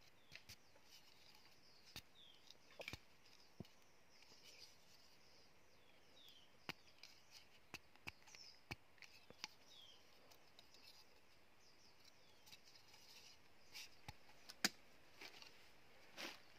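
Scattered light clicks and taps of bamboo pieces being fitted together and whittled with a knife while a bamboo trap is assembled, with a short scrape near the end. Faint bird chirps sound in the background.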